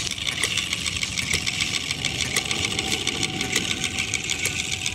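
Miniature Retrol hit-and-miss model gas engine running, its flywheels spinning, with a fast, even run of ticks from its firing and valve gear.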